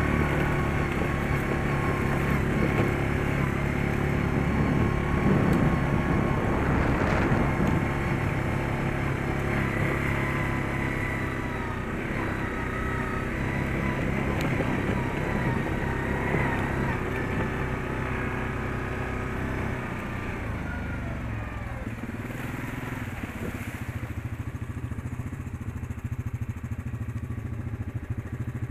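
Yamaha Grizzly ATV engine running while riding a dirt trail, its pitch rising and falling with the throttle, then easing off and running lower near the end as the machine slows.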